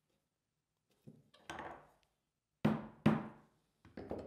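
About five sharp wooden knocks and taps on a butcher-block workbench as a threaded insert is seated in a wooden drafting head, each with a short ring. The two loudest come close together a little past the middle.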